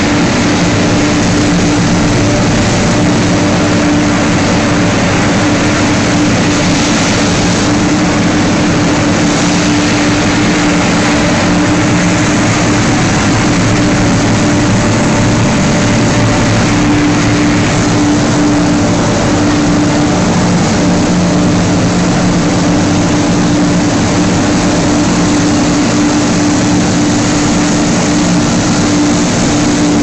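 Machinery of a PE film washing and recycling line running: a loud, steady industrial drone with constant low humming tones over a rushing noise.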